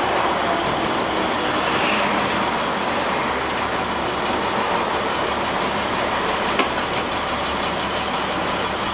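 1999 International school bus on the move, heard from inside: steady diesel engine and road noise, with a single click about six and a half seconds in.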